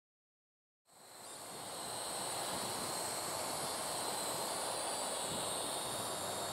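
Parrot AR.Drone 2.0 quadcopter's motors and propellers running steadily with a high-pitched whine as it flies low. The sound fades in about a second in, after dead silence.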